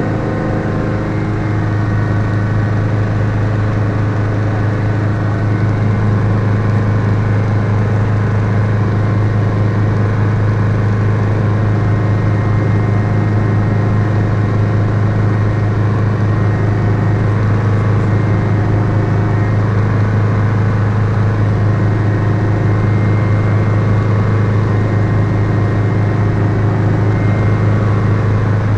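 Schweizer (Hughes) 300C/269C helicopter heard from inside the cockpit in flight: its four-cylinder Lycoming piston engine and rotor make a loud, steady drone with a strong low hum, growing a little louder over the first few seconds.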